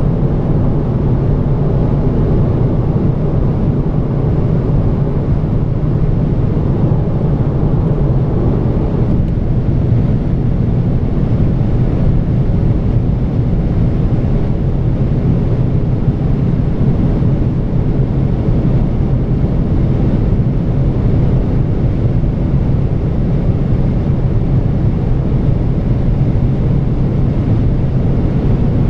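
Inside the cabin of a VW Golf 7 2.0 TDI four-cylinder turbodiesel accelerating at high speed: a steady low engine drone mixed with wind and tyre noise as the car climbs past 200 km/h.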